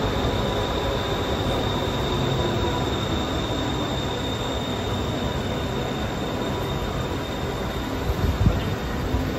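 Metro train running along a station platform: a steady rumble with a thin, high-pitched whine over it. A few low knocks come about eight seconds in.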